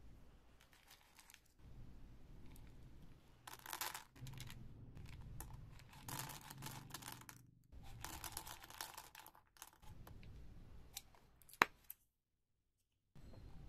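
Candy wrappers being torn open and crinkled by hand, in several short rustling bursts, with a sharp click near the end.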